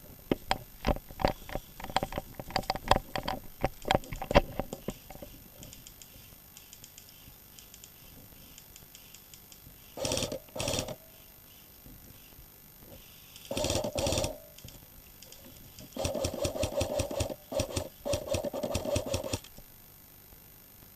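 Airsoft electric guns firing full-auto bursts, each a rapid mechanical rattle of the motor-driven gearbox cycling. There are two short bursts about ten seconds in, another about fourteen seconds in, and a run of close bursts over about three seconds near the end. Before these, in the first few seconds, comes a run of sharp irregular clicks and knocks.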